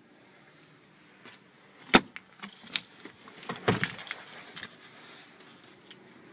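Plastic center console lid of a truck's split bench seat being swung shut, latching with one sharp, loud click about two seconds in, followed by a run of lighter clicks and rattles over the next two and a half seconds.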